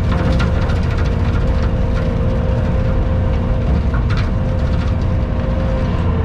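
Skid steer engine running hard with its hydraulic bush hog spinning as it cuts brush: a steady low rumble under a constant whine, with a few faint sharp ticks.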